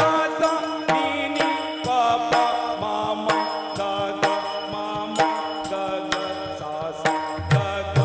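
Devotional kirtan music: ornamented, wavering singing over a steady held tone, with pakhawaj drum strokes beating throughout. Deeper bass strokes come in near the end.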